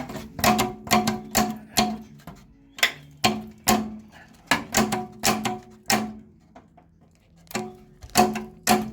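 Sharp metallic clangs with a ringing after each, as the rusty outer sill panel of a Rover P6 is knocked and jiggled loose from the body after its spot welds have been drilled out. About sixteen blows come in quick runs of two to four a second, with a pause about six seconds in.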